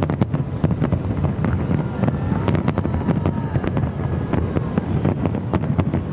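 Wind buffeting an exposed microphone, a steady low rumble with many sharp scattered pops and clicks.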